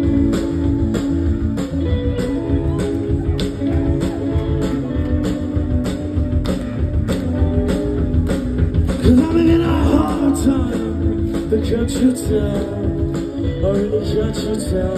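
Live rock band playing loud in a small club, heard from within the crowd: a steady drum beat with guitars and bass, and a singer's voice over them. The full band comes in suddenly at the start.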